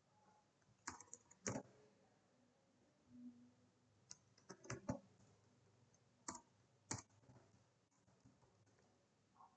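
Faint, scattered keystrokes on a computer keyboard during code editing: a couple of clicks about a second in, a small cluster around four to five seconds, and two more a little later.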